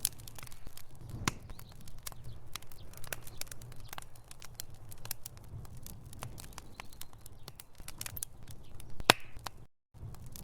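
Wood fire in a fireplace crackling and popping irregularly over a low, steady rumble of flame, with one louder pop about nine seconds in. The sound cuts out completely for a moment near the end.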